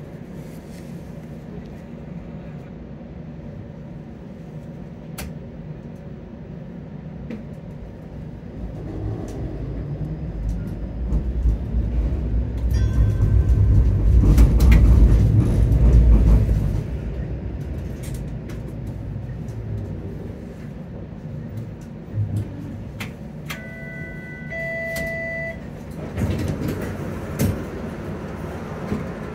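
Inside a Toronto streetcar in motion: a low rumble of the motors and steel wheels on the rails, swelling to its loudest about halfway through and then easing off. A few brief high-pitched tones sound near the end.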